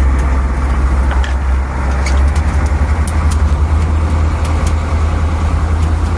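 Boat engine running steadily under way while trolling, a deep drone with a slight shift about two seconds in, over a rushing noise and a few sharp ticks.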